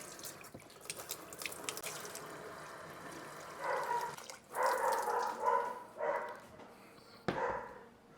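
Tap water running into a pot of cut potatoes, then a dog gives several drawn-out whining calls about halfway through and again near the end.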